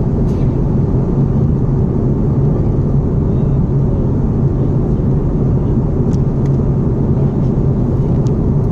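Steady drone of an airliner cabin in cruise: engine and airflow noise heard through the fuselage by a window seat, low and unchanging, with a few faint clicks.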